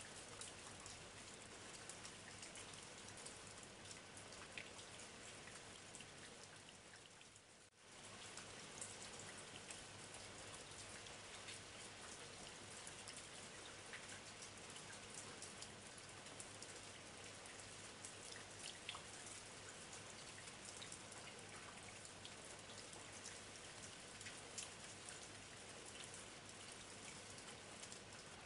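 Faint light rain falling: an even hiss dotted with many small drop ticks. It dips away briefly about eight seconds in, then returns.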